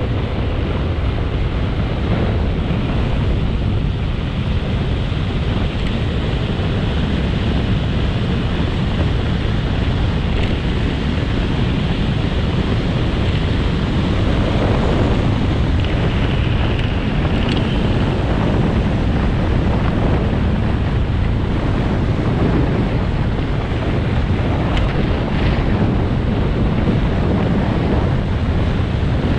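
Steady wind rush buffeting the microphone of a camera moving down a road.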